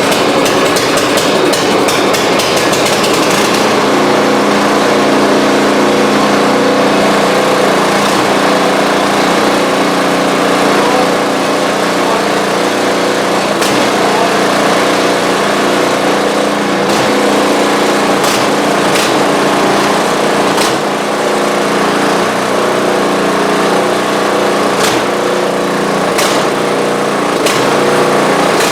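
Small single-cylinder gas snow blower engine running steadily just after starting, with scattered sharp clicks and knocks, while it is run to check that the augers engage.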